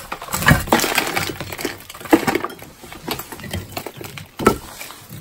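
Burnt-out firebox bricks of a brick stove crumbling and knocking as they are pried and pulled loose from under the metal cooking plate, with scraping and clinks from a crowbar and hammer. Irregular knocks and scrapes, the loudest about two seconds in and another near four and a half seconds.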